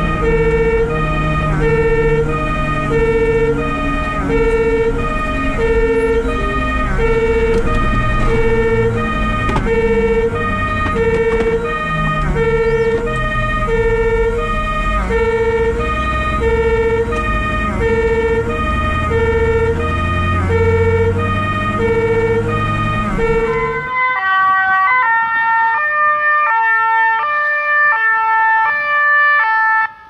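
Fire engine's German two-tone siren (Martinshorn) alternating between two pitches about once a second, heard from on board the vehicle over its engine and road noise. About 24 seconds in the sound switches to the more distant two-tone siren of an approaching fire engine, without the engine noise.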